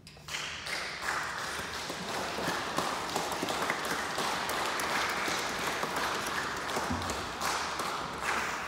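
Congregation applauding: dense clapping that starts right at the end of the eulogy, holds steady for several seconds and dies away near the end.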